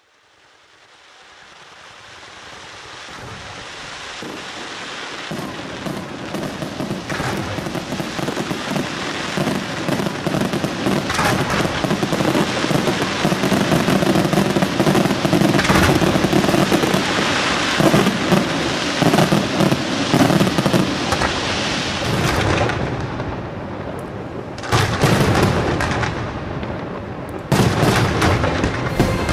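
Fireworks going off: a dense run of bangs and crackling that fades in from silence over the first few seconds, with sharper cracks scattered throughout.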